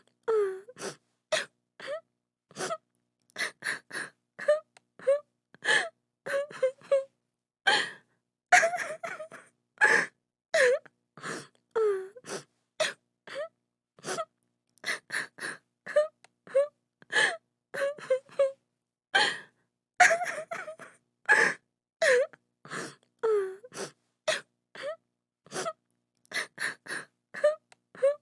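A woman crying: short, broken sobs and gasping breaths, some with a wavering, falling moan in the voice, coming one after another with silent gaps between.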